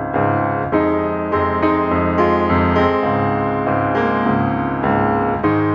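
Background music: a piano playing a slow tune, with a new note or chord struck about every half second.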